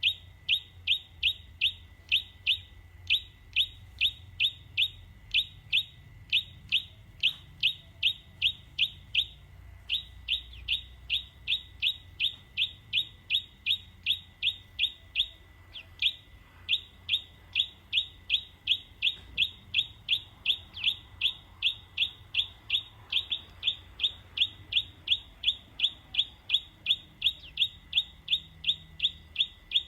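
A bird giving one short falling chirp over and over, about three a second, very evenly, with two brief breaks, about a third of the way in and about halfway through. A faint steady high tone runs underneath.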